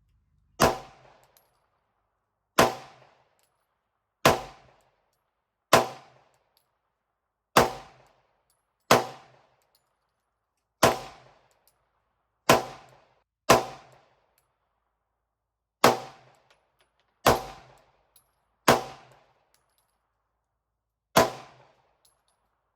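Pistol fired single shot after single shot, thirteen sharp cracks in all, spaced about one to two and a half seconds apart, each dying away quickly.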